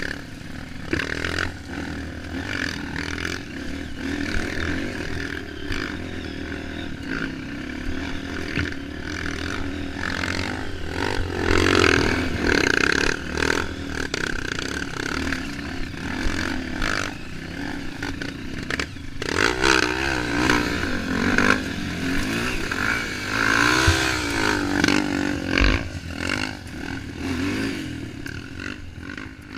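Trail motorcycle engine running under load, its revs rising and falling repeatedly, with clattering and scraping as the bike rides over rough ground.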